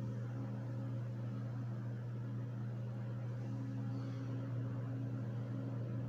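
A steady low hum with faint overtones, unchanging in pitch and level, from a running electrical machine or mains hum in the room.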